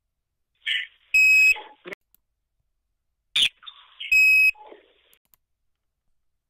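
Strange tones on a phone line from a voicemail recording. Twice, about three seconds apart, a short hissy chirp is followed by a loud, steady, high beep of under half a second and then brief garbled, robotic-sounding fragments.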